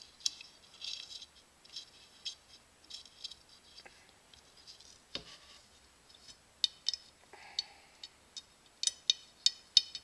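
Small Allen wrench turning set screws into an aluminum hook stop on an aluminum ruler: a string of light metal clicks and rattles, sharper and louder over the last few seconds.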